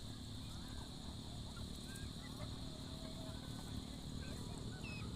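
Free-range native chickens calling softly: many scattered short clucks and peeps over a steady low rumble.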